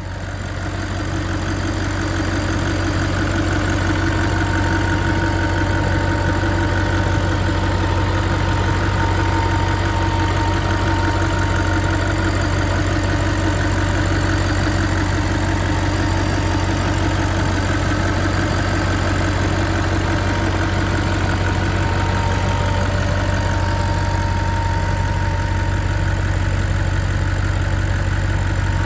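2015 Audi RS5's naturally aspirated 4.2-litre V8 FSI engine idling steadily, heard from the open engine bay. It grows louder over the first couple of seconds, then holds an even, unchanging hum.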